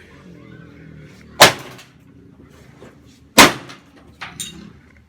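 Heavy blows striking a lawnmower engine: two loud metal impacts about two seconds apart, each ringing briefly, then a lighter knock near the end.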